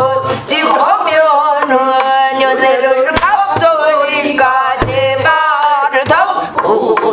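A woman singing pansori in a full, wavering voice with heavy vibrato, accompanying herself on a buk barrel drum with sharp stick strokes spaced a second or more apart.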